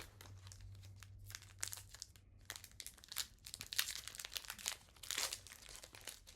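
Foil wrapper of a Pokémon TCG booster pack crinkling in the hands as it is torn open, a run of irregular crackles.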